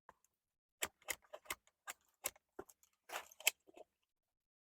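Hard plastic clicks and rattles of a Dyson V7 stick vacuum's dust bin and release parts being handled and worked, about ten irregular sharp clicks with a brief scrape about three seconds in.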